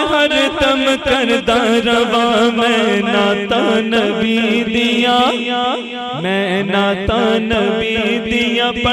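Man singing a Punjabi naat solo into a microphone, with sliding, ornamented notes, over a steady sustained drone and a quick, regular ticking beat.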